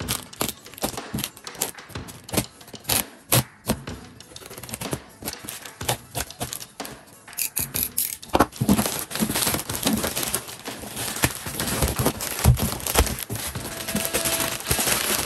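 A plastic courier mailer being slit with a utility knife and torn open, with many short crinkles and rustles of the plastic. It gets denser and louder about halfway through as a cardboard box is pulled out of the torn mailer.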